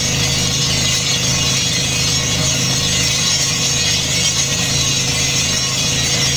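Truck-mounted borehole drilling rig running under load: a steady engine drone with a fast mechanical rattle, and a loud hiss of compressed air blowing drill cuttings out of the hole as dust.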